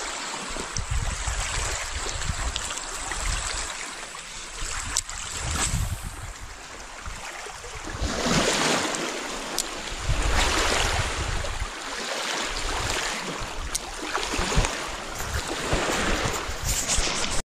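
Wind on the microphone and small waves lapping at a lake shore: a rushing noise that swells and fades every second or two, with a few sharp clicks.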